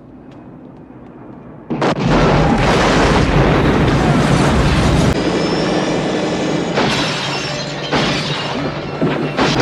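A house exploding: a sudden, very loud blast about two seconds in, followed by crashing debris and a long rumble, with fresh jolts of noise later on.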